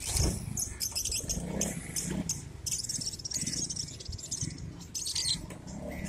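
A flock of caged budgerigars chattering and chirping all at once, a dense unbroken stream of short high chirps.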